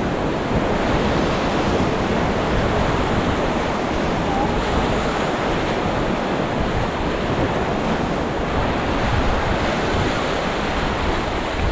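Steady rush of river water around a raft on the Ganges, with wind buffeting the microphone.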